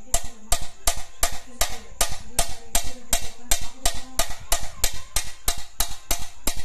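Sheet glass tapped repeatedly with the metal ball end of a glass cutter: sharp, even clicks, about three or four a second, the usual way of running a scored line so the glass breaks cleanly.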